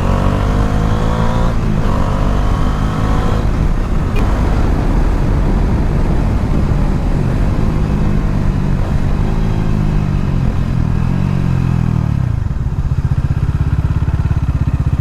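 Bajaj Dominar 400's single-cylinder engine heard while riding, with wind noise: the engine note rises in the first few seconds, drops as the bike slows about nine to eleven seconds in, then settles into a steady low pulsing beat, close to idle, for the last couple of seconds.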